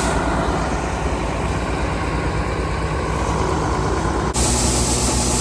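Engine of farm harvest machinery running steadily, with an abrupt change in the sound about four seconds in, after which the low engine hum is stronger.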